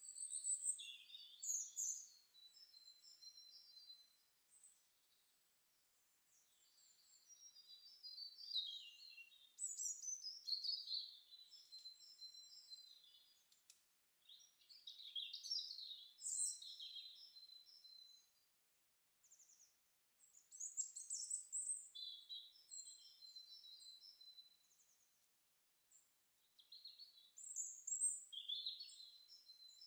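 Recorded garden birdsong: small birds chirping and trilling in quick high phrases, with several short lulls between them.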